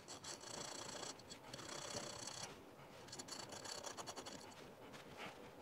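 Hand file scraping in quick strokes across the metal base of a front night sight, taking off a little material so the sight will fit the dovetail. The filing comes in two runs, with a short pause about two and a half seconds in.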